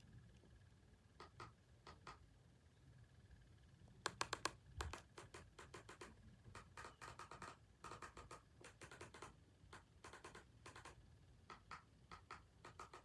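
Faint, irregular scratching and light clicks in small clusters, with a few louder clicks about four seconds in.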